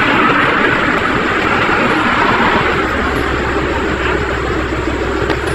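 A Toyota sedan passing close by on an asphalt road, its tyre and road noise rushing loudest at first and then easing off. A low engine hum comes in about halfway through.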